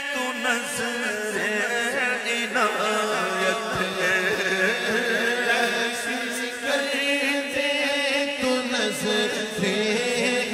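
A man's voice singing an Urdu devotional kalaam of repentance, with wavering ornamented notes over a steady low drone.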